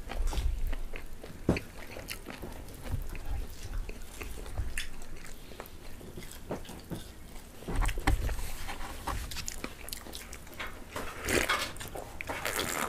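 Close-up biting and chewing of fried chicken, with irregular crunches and small clicks.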